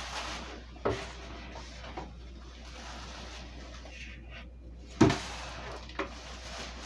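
Rustling of packing material and plastic wrap as a parcel is unpacked, with a few knocks and thumps from the cardboard box and wrapped package being handled; the loudest thump comes about five seconds in.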